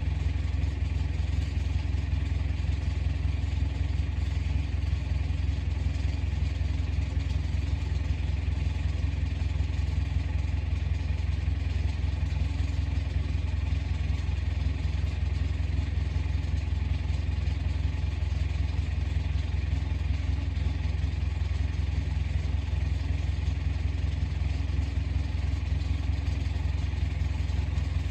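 Komatsu bulldozer's diesel engine running steadily, a constant low drone that does not change in speed.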